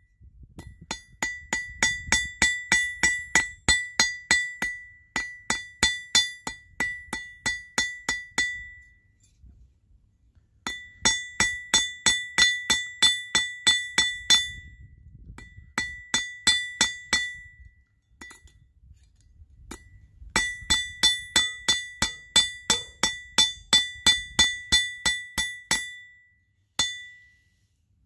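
Ball-peen hammer striking a copper pin on a steel block used as an anvil, about three blows a second with a clear ring on each, in several runs broken by short pauses.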